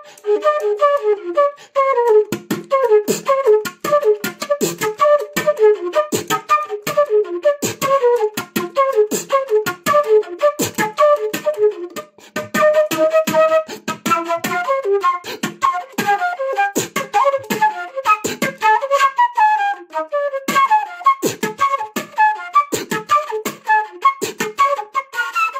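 Transverse flute played beatbox-style: quick melodic notes and runs broken up by sharp percussive pops and thumps voiced into the flute, several a second, with one longer held note about halfway through.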